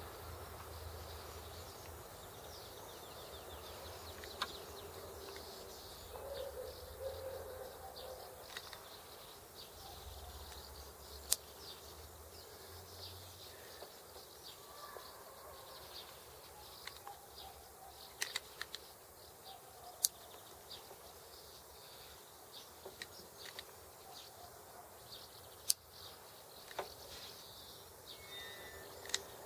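Faint outdoor background of birds chirping and insects, broken by a few sharp isolated clicks as the opened SRAM/Sachs 7-speed shifter is worked by hand.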